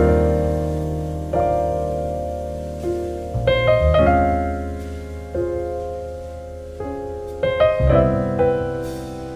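Slow solo piano background music: sustained chords struck every second or so and left to fade, with a few higher notes added now and then.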